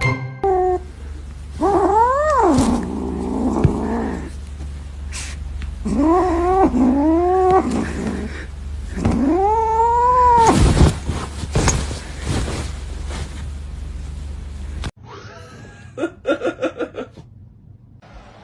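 A cat caterwauling: a series of long, drawn-out yowls that rise and then fall in pitch, one about two seconds in, two close together around six to eight seconds, and a longer one around ten seconds, over a steady low hum. The sound changes abruptly near the end to something quieter.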